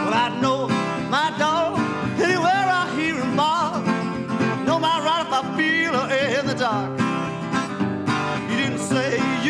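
Acoustic blues guitar playing an instrumental break: a steady picked bass under a lead line that bends and wavers in pitch.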